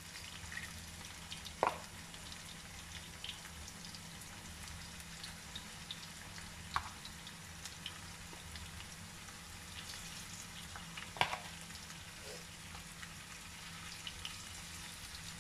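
Turmeric-marinated chicken pieces frying in hot oil in a non-stick wok, a steady soft sizzle. Three sharp clicks of a metal spoon against the pan as more pieces go in.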